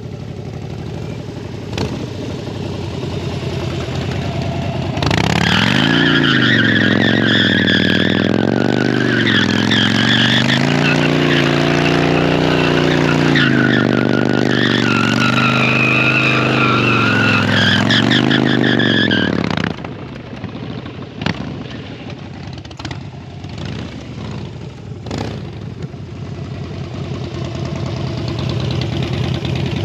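Harley-Davidson V-twin engine revved hard through a burnout for about fifteen seconds, its pitch rising and falling, with the rear tyre squealing over it. It then drops back to a quieter rumble with a few clicks.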